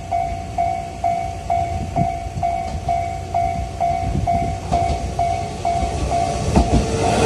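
Japanese level-crossing warning bell ringing in a steady electronic clang, about two strokes a second, then stopping near the end. Under it a JR Ube Line electric train rumbles with its wheels clacking over rail joints.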